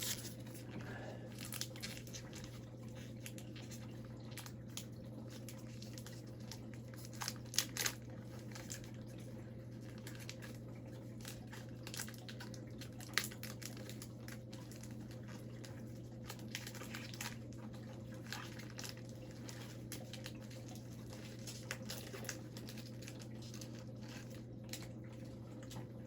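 Faint handling of hockey trading cards and pack wrappers: scattered crinkles and light clicks, a few louder ones about 7 to 8 seconds and 13 seconds in, over a steady low hum.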